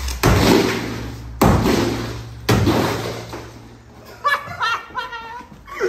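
Three sledgehammer blows against a plastered brick partition wall, each a sharp crack with a ring that dies away over about a second.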